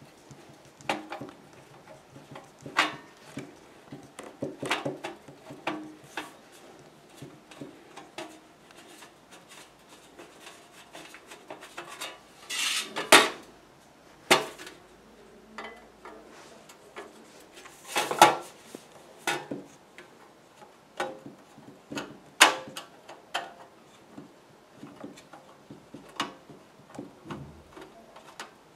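Irregular metal clicks and clinks from the underside mechanism of a Pfaff 1245 industrial sewing machine, as its parts are handled with a screwdriver and by hand, with a couple of short rattles about halfway through.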